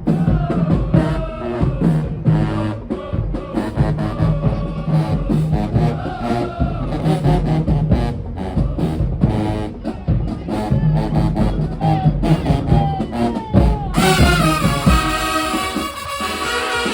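Marching band playing, with drums beating under brass. About fourteen seconds in, the sound changes abruptly to a brighter, fuller passage with fewer drum hits.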